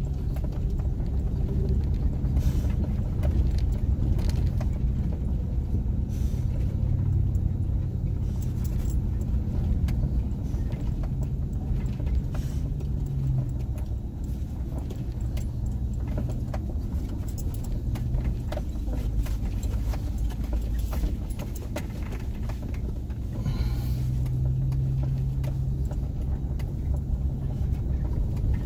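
Chevrolet Silverado pickup crawling along a rough dirt trail in four-wheel drive high, its engine running low and steady, with scattered clicks and rattles as the truck jolts over the ground.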